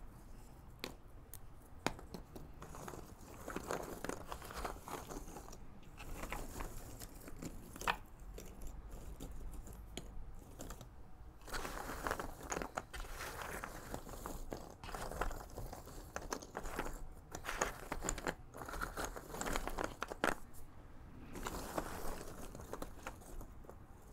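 Fingers rummaging and stirring loose cardboard jigsaw puzzle pieces in a cardboard box, a dry rustling clatter in repeated bursts with small sharp clicks as pieces are picked up and dropped.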